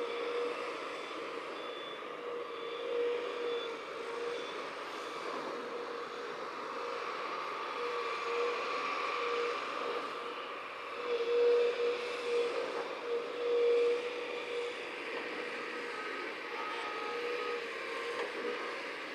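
Heavy construction machinery running steadily, with a reversing alarm beeping for a few seconds near the start.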